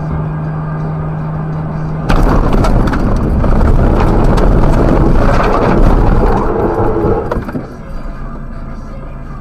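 Car running off the paved highway onto the rough shoulder: about two seconds in, the steady road drone gives way suddenly to a loud rumble and rattle of tyres and body over rough ground, lasting some five seconds before it eases back to a quieter road drone.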